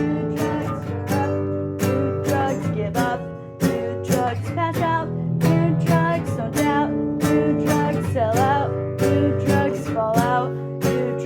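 Music: a strummed acoustic guitar, with a voice singing over it in places.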